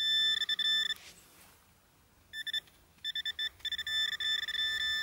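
Metal-detecting pinpointer giving its high electronic alarm tone, pulsing rapidly as it is worked through the loose dug soil over a metal target, a shard of scrap metal. It falls silent for about a second and a half, then sounds again with a short burst and resumes pulsing.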